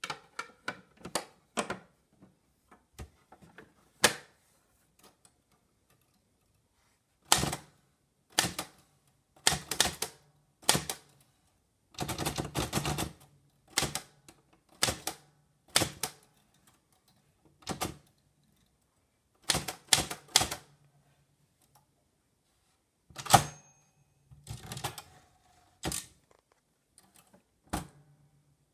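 1988 Underwood 319 typewriter being typed on: keys striking in irregular runs of clacks with short pauses between them, the densest run about twelve seconds in and the loudest single strike about twenty-three seconds in.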